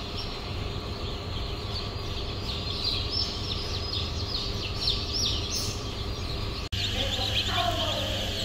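Dozens of day-old chicks in crates peeping constantly, a dense chorus of short, high, falling cheeps, over a steady low hum.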